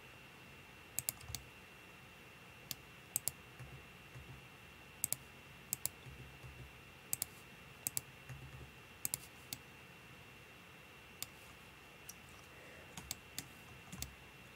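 Computer mouse buttons and keyboard keys clicking: scattered sharp clicks, many in quick pairs, while 3D modelling software is worked. A faint steady high-pitched whine runs underneath.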